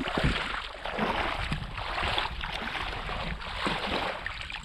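Steady rushing noise of wind and water at the shoreline, with a couple of low thumps near the start.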